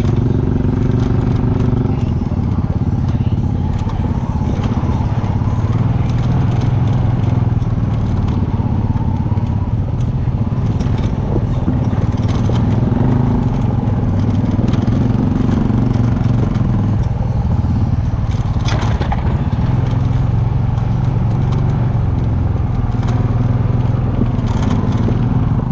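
ATV engine running while being ridden off-road, its pitch shifting up and down with the throttle, with scattered knocks and clatter from the rough ground.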